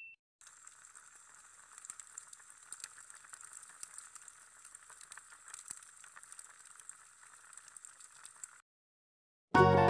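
Faint recorded log-fire crackling: a soft hiss with irregular small pops. It cuts off sharply, and after a short silence music starts near the end.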